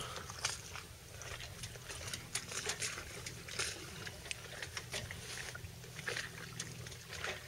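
Small waves lapping and trickling against a sailboat's hull, with irregular little splashes and patters throughout, over a faint steady low hum.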